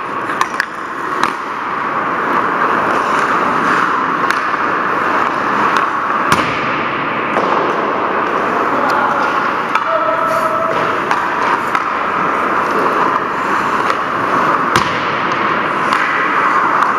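Ice rink sound during hockey play: skate blades scraping the ice over a steady hiss, with sharp clacks of sticks and puck now and then, the loudest about six seconds in and again near fifteen seconds.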